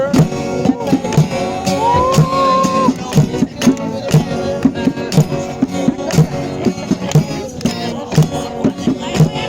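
Music with a steady beat, with a gliding melody line that rises about two seconds in and fades out by the third second.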